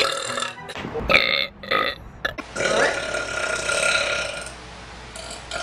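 Women burping: two short burps, then a long drawn-out burp of about two seconds.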